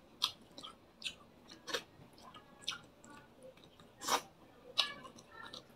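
Close-up chewing and wet lip-smacking of a man eating fried fish with his fingers. Short, sharp smacks come about once a second, the loudest about four seconds in, as his fingers go to his mouth.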